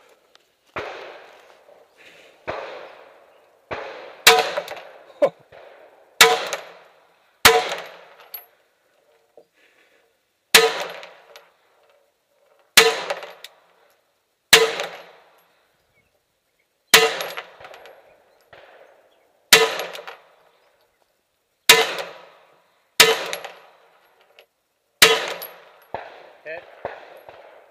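Pistol shots fired one at a time, about fifteen of them every second or two. Each shot is followed by a short metallic ring.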